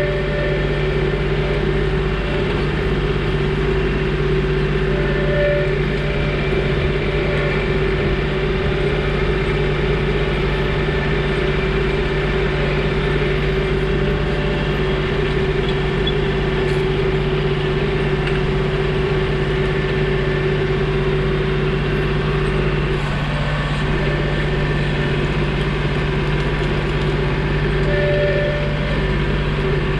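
John Deere 2032R compact tractor's three-cylinder diesel engine running steadily at constant speed.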